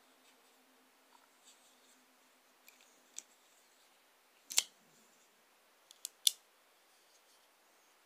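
Gerber Highbrow Compact folding pocket knife being worked by hand: a few small clicks, then a loud sharp snap about four and a half seconds in and two more sharp snaps close together around six seconds, as the blade is opened, locked and folded shut.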